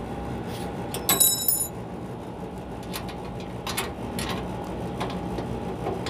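Split AC outdoor unit running with a steady hum as an Allen key turns the thin-pipe service valve shut, the first step of a pump-down that lets the compressor pull the refrigerant into the outdoor unit. About a second in there is a sharp metallic clink with a high ring, then a few light clicks.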